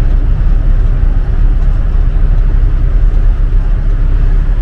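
Magirus Deutz truck's air-cooled Deutz diesel engine running steadily: a loud, even, low drone.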